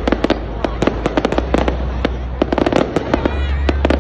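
Aerial fireworks display: a rapid, irregular run of bangs and crackles from bursting shells, several a second, over a steady low rumble.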